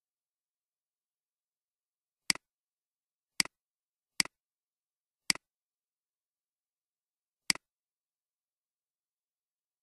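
Five computer mouse clicks spread over several seconds, each a sharp double tick of press and release, with dead silence between them.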